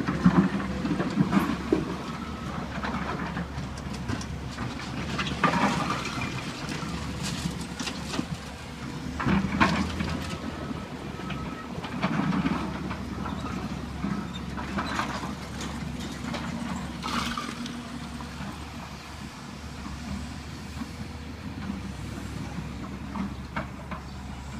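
Hydraulic excavator's diesel engine running steadily while it works a rubble pile, with loud crashes and clatter of broken brick and concrete every few seconds as debris is dropped and pushed.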